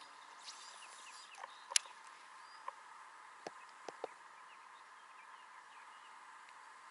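Faint birdsong over a soft steady outdoor hiss, with a few sharp clicks scattered through the middle, the loudest a little under two seconds in.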